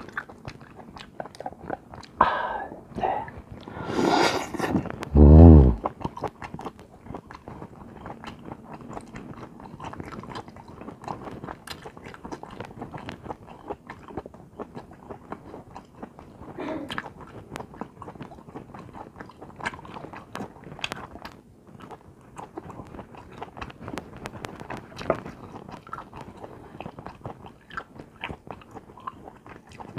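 Close-miked mouth sounds of a man chewing king crab meat: soft wet smacks and small irregular clicks, slow and unhurried. A few louder sounds come in the first six seconds, the loudest a short vocal hum about five seconds in.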